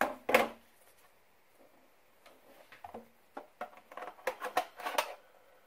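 Plastic knocks and clicks as a Nerf Stryfe blaster is handled and a magazine is pushed into it: two sharp knocks at the start, then a run of short clicks that thickens about four seconds in.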